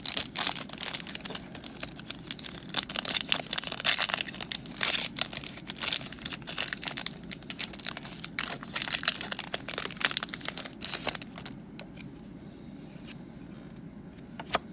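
Foil Pokémon card booster pack wrapper crinkling and being torn open: a dense run of crackles that stops about eleven seconds in.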